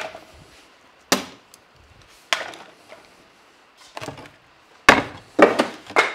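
Plywood template pieces knocking and clattering against a plywood tabletop as they are handled and lifted off. A handful of separate wooden knocks, the loudest about five seconds in.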